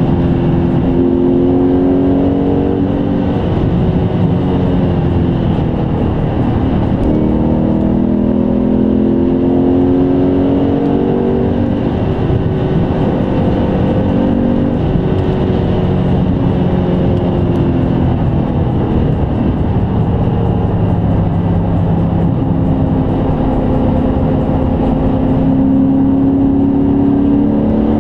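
BMW E39 M5's 4.9-litre V8 heard from inside the cabin while cruising on a motorway, its note rising and falling gently with small changes in speed over steady road noise.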